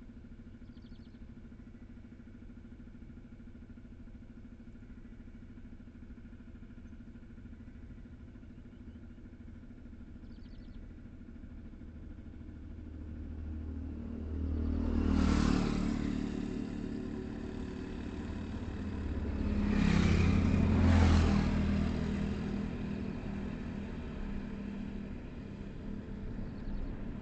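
Highway traffic: a steady low engine hum, then a vehicle passing close by a little past halfway, and two more passing close together about three-quarters of the way in, each swelling and fading.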